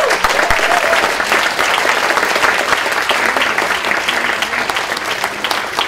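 Audience applauding: dense, many-handed clapping that eases off slightly toward the end.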